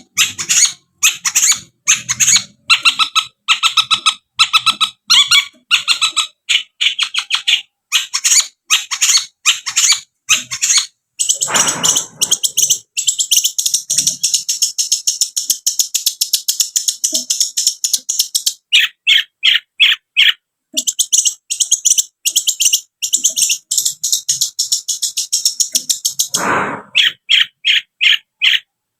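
Long-tailed shrike (cendet) singing vigorously: fast chattering trills and rapid runs of repeated high notes in quick successive phrases. Two harsher, rasping bursts break in, about twelve seconds in and again near the end.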